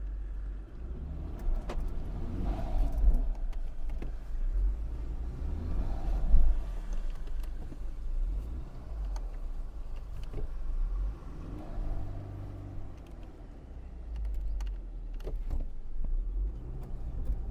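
Land Rover Defender 110 stuck across muddy ruts, its engine revving up in a few swells as the wheels spin. A deep, steady rumble sits underneath.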